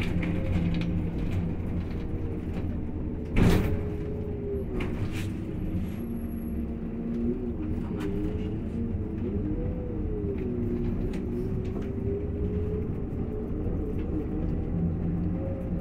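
Irisbus Crossway 12 m bus under way, heard from inside the passenger cabin: its diesel engine runs steadily over road noise, its pitch rising and falling a few times. A single sharp knock comes about three and a half seconds in.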